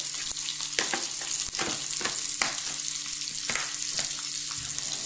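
Tempering of chana dal, mustard seeds, cumin, fenugreek, dried and green chillies and curry leaves sizzling in hot oil in a kadai, a steady hiss with sharp crackles here and there. A faint steady hum runs underneath.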